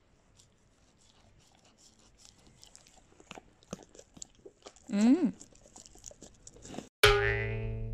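An Alaskan malamute biting and chewing a treat held out on a small stick, a run of short crunches and wet clicks. About five seconds in comes one short voice sound that rises and falls in pitch, and near the end a loud musical sound effect starts suddenly.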